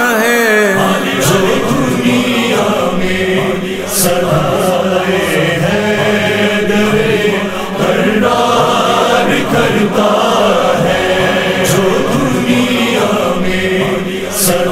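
A chorus chanting the repeated refrain of a manqabat, a Shia devotional song in praise of Ali, sung as vocal music with a few sharp accents.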